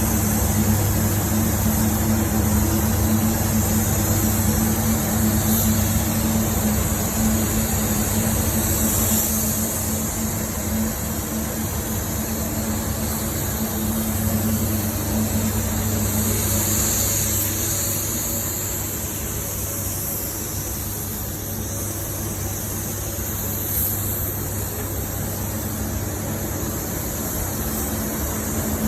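Steady mechanical hum with a constant hiss over it, like a motor or ventilation fan running without pause; it drops slightly in level a little past the middle.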